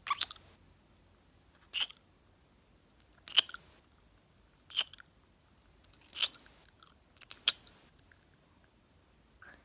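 Close-miked ASMR kissing and mouth sounds: short, sharp smacks, one about every second and a half.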